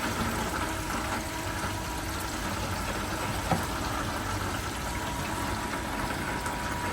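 Water pump running steadily and water flowing through a sluice box, with one short click about three and a half seconds in.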